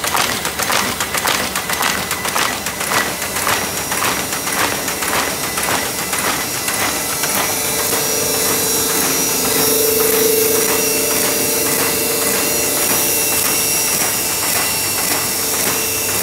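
Print-shop paper-handling machinery running: a fast, rhythmic mechanical clatter of several clacks a second. About halfway through it gives way to a steady machine hum with a faint high whine.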